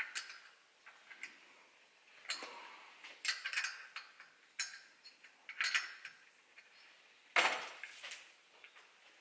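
Metal tools and small parts clinking and knocking against each other and the workbench as the exhaust manifold is taken off the engine. There are about eight separate clinks with short pauses between them, the loudest about seven seconds in.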